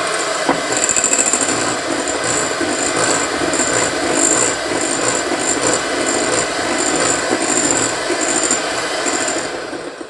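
White electric hand mixer running, its beaters whisking cake batter in a glass bowl; the motor winds down and stops near the end.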